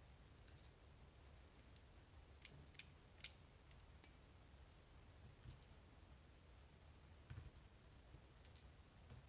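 Faint, scattered light clicks of small parts and tools being handled while a dimple lock cylinder is taken apart, a sharper cluster of three clicks near the middle, over a low steady hum.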